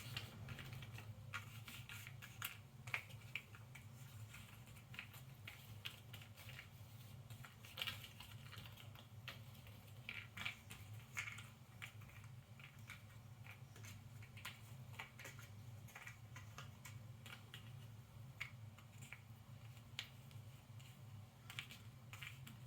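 Cardboard jigsaw puzzle pieces being handled and set down on a table: faint, irregular small clicks and taps, with a few louder taps scattered through, over a steady low hum.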